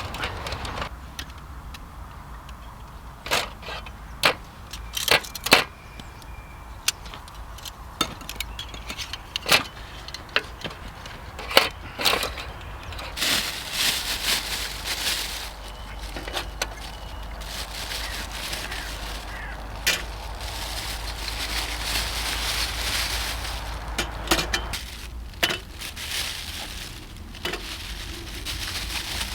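Scattered clicks and knocks of metal camp-stove gear being handled, over a steady low rumble. A stretch of even hiss runs through the middle.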